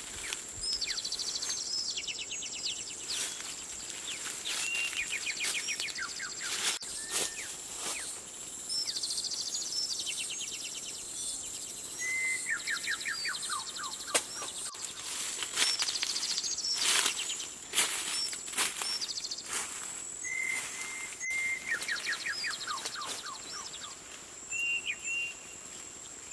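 Outdoor nature ambience: birds singing, repeating every few seconds a short note followed by a quick falling trill, over a steady high-pitched insect whine, with scattered sharp clicks.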